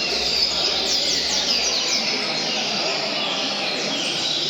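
Several double-collared seedeaters (coleiros) singing at once, with rapid overlapping chirped phrases, over a low murmur of people talking.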